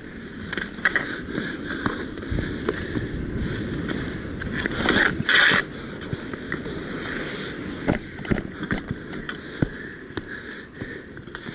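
Inline hockey skates rolling and scraping on a hard court, with scattered sharp clacks of hockey sticks. Two loud scraping bursts come about five seconds in.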